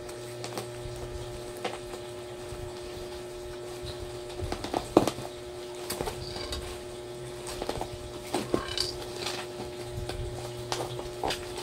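Plastic parcel wrapping being pulled open by hand, crinkling and crackling in irregular bursts with a sharp snap about five seconds in. A steady low hum runs underneath.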